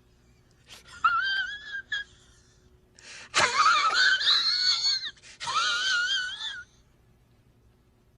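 A high-pitched, wavering wail-like meme sound effect in three bursts, the middle and loudest one starting with a sharp click.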